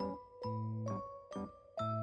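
Background music: a light tune of struck notes that ring on, over a low bass note that comes and goes about every second.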